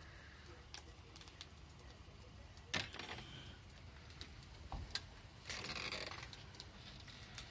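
Pickup truck fire crackling faintly, with scattered sharp pops, the loudest about three seconds in. A short rustling noise follows at about five and a half seconds.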